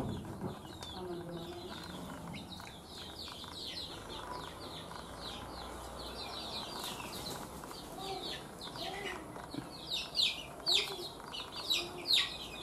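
Young free-range (kampung) chickens peeping: many short, high, falling chirps, sparse at first and coming thicker and louder in the last few seconds.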